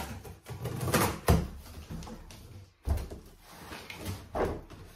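A large cardboard shipping box being cut open and unpacked: a cutter slitting the packing tape, then the cardboard flaps pulled open, with irregular scraping, rustling and a few sharp knocks of stiff cardboard, the loudest about a second in.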